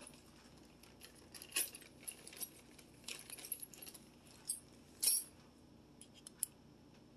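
Light metallic clinks and rattles of small hardware being handled. A scatter of sharp clicks with a short cluster in the middle, and the loudest clink about five seconds in.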